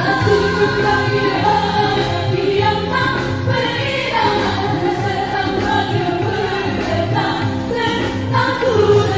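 Several female singers singing a Malay song together on stage, with a band playing under the voices.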